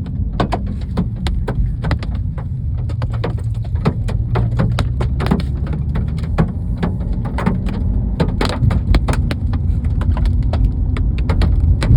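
Hailstones hitting a moving car in many irregular, rapid knocks and clicks, over the car's steady low road rumble.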